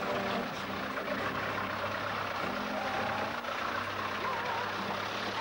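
Land Rover Series four-by-four's engine running steadily as it wades through a shallow rocky river, with water splashing around the wheels.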